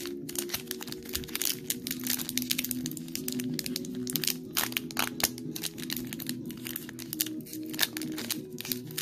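Foil wrapper of a Pokémon booster pack crinkling as it is picked up and handled, many quick crackles, over background music of held notes.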